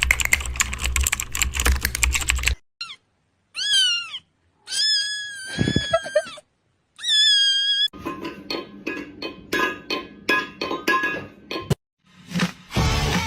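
Rapid computer-keyboard typing, then a cat meowing about four times, one call long and drawn out, then fast typing again.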